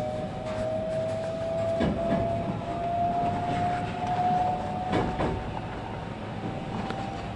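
Inside a 521-series electric multiple unit car as it gathers speed: a steady whine from the traction motors rises slowly in pitch over the running rumble. A few wheel clicks over rail joints come about two seconds in and again about five seconds in.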